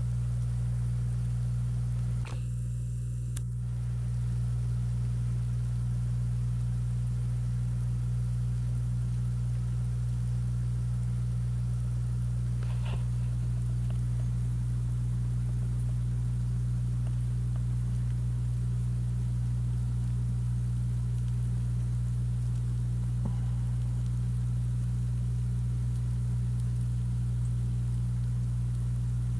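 A steady low hum with a faint hiss over it, unchanging throughout, broken by a few faint ticks.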